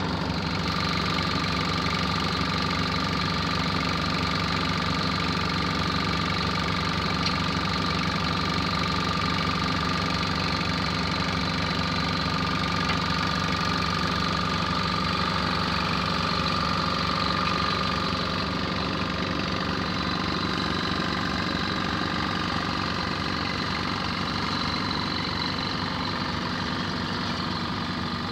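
Diesel locomotive idling at the head of a standing passenger train: a steady low engine drone with a constant thin whine above it.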